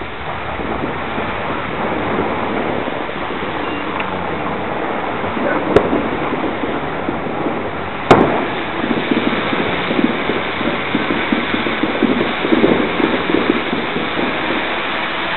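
Two sharp bangs about two seconds apart, the second the louder and echoing, over a steady noisy hiss with many fainter scattered pops: celebratory gunshots and firecrackers going off around the neighbourhood.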